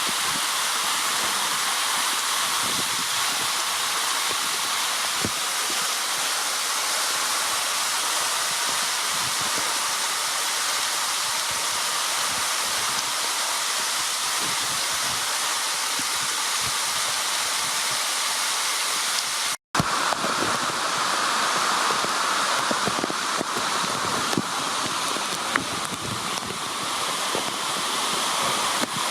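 Waterfall: a steady, dense rush of falling water. It cuts out for a moment about twenty seconds in, then resumes with a slightly different tone.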